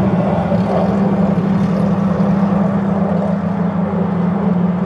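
Steady engine drone holding one constant low pitch, with no rise or fall.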